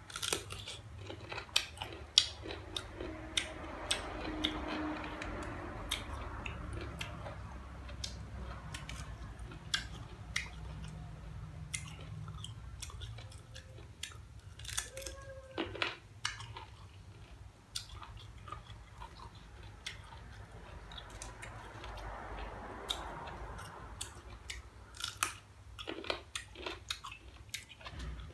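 Biting and chewing slices of green, unripe mango: many sharp crunches from the bites, with the chewing between them.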